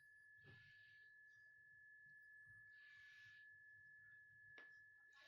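Near silence: a faint steady high-pitched whine, with two soft hisses, about half a second in and about three seconds in, and a single small click near the end.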